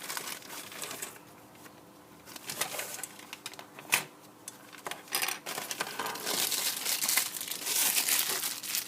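Paper and plastic packaging crinkling and rustling as it is handled and opened, in irregular bursts, with a sharp click about four seconds in and denser rustling near the end.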